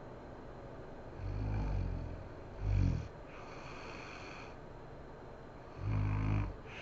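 A sleeping woman snoring: three low snores with quiet pauses between them, a longer one about a second in, a short sharp one near three seconds, and another near the end.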